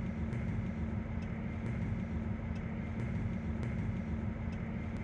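Cabin noise inside a Rivian R1T electric pickup crawling slowly: a steady low hum with one constant pitch and a few faint, scattered ticks.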